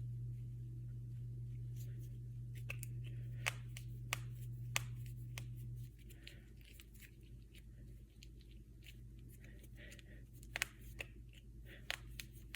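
Finger knuckles being cracked: a scattered run of sharp pops at irregular intervals, the loudest a few seconds in and again near the end. Under them is a low hum that stops about halfway through.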